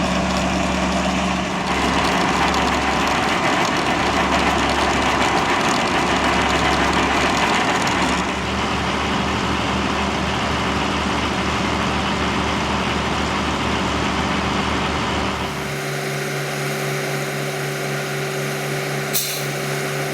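Heavy vehicle engine running steadily. About fifteen seconds in the sound changes to a different, steadier hum, and near the end there is one short, sharp hiss.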